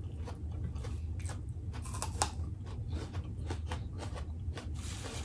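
Two people chewing and biting food close to the microphone, irregular small clicks and crunches, over a low steady hum.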